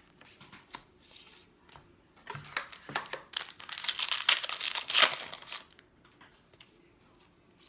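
A trading-card pack wrapper being torn open and crinkled in the hands: light rustling at first, then a burst of loud crackling crinkles for about three seconds before it dies down to soft handling.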